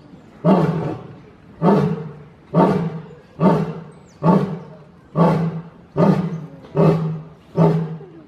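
A lion roaring: a series of about ten deep, loud grunts, each starting sharply and fading away, coming a little faster toward the end.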